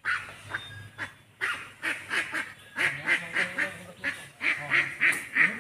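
A series of short animal calls, several a second, coming thicker and louder through the second half.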